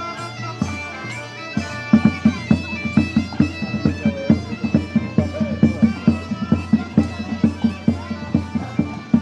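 Portuguese bagpipe (gaita de foles) playing a melody over its steady drone, with a drum coming in about two seconds in and beating an even rhythm.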